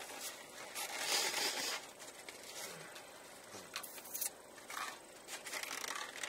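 Paper napkin rustling and a plastic fork scraping and clicking in a foam takeout container, with the loudest rustle about a second in.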